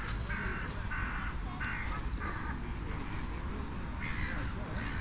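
A crow cawing: four short, harsh calls in an even rhythm over the first couple of seconds, then a higher, longer call near the end.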